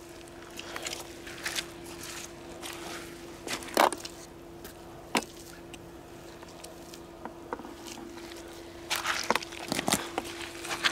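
Footsteps walking on a trail: irregular crunches and snaps, with a sharp louder one about four seconds in and a quick cluster near the end, over a faint steady hum.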